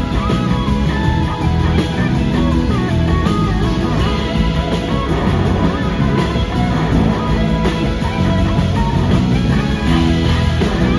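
A live rock band playing, heard from the audience: an electric guitar lead gliding between notes over bass and drums.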